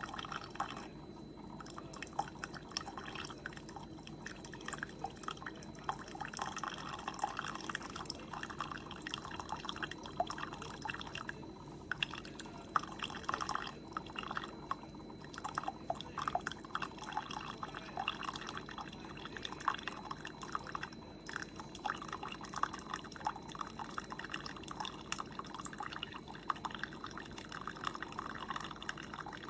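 Single-serve coffee maker brewing by gravity flow: hot coffee trickles and drips steadily from the grounds basket into a ceramic mug, with a faint low hum from the machine underneath.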